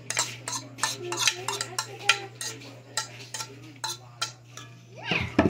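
A spoon clinking and scraping against a stainless steel bowl while mixing sliced okra into beaten egg, with repeated quick clicks. A brief voice sounds near the end.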